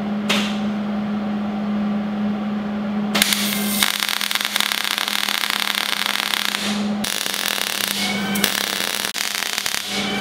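MIG welder tack-welding steel brackets onto the frame: the arc crackles and spits in two stretches, from about three seconds in to about seven, and again from about eight seconds in, over a steady low hum.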